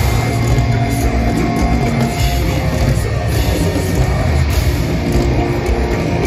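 Deathcore band playing live at full volume: distorted electric guitars, bass and drums in a continuous heavy metal passage.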